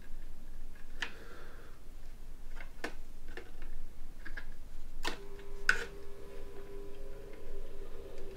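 Scattered small clicks and taps of needle-nose pliers and fingers against the wires, switch pins and plastic case of a toy RC helicopter's remote control, about a dozen in all and the sharpest about five seconds in. A faint steady tone begins at that point.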